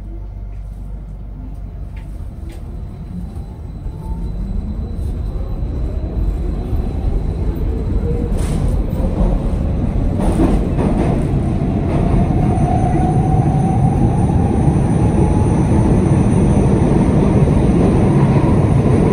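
Metro train pulling away and accelerating, heard from inside the car: the traction motors' whine rises steadily in pitch while the wheel and track rumble grows louder.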